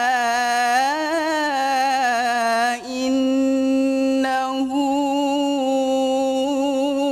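Male Quran reciter chanting in melodic mujawwad style, drawing out a phrase in a long melisma. The pitch turns and wavers for the first few seconds, breaks briefly for breath, then settles into a long, nearly level held note with a slight vibrato.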